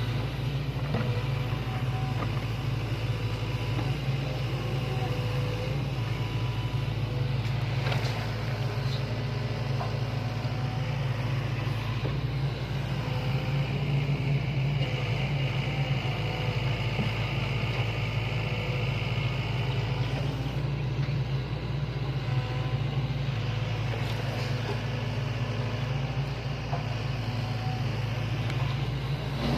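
Sany hydraulic excavator's diesel engine running steadily as it works dirt, with short recurring whines over the low hum and a few brief knocks, the clearest about eight seconds in.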